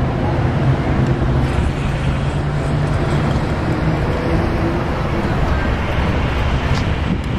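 Steady street traffic noise: cars and engines running, with a low engine hum held through it.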